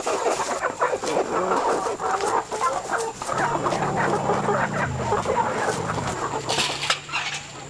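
Many chickens clucking at once, their calls overlapping densely. A low steady hum joins a little over three seconds in.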